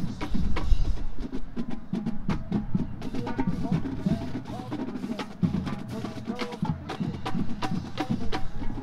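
Marching band music carried mainly by percussion: rapid sharp drum and rim clicks with bass-drum hits, over short pitched notes.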